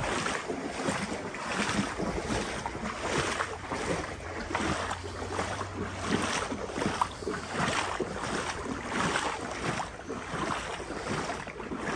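Legs wading through knee-deep floodwater, the water sloshing and swishing in a regular rhythm, a surge with each stride about once a second.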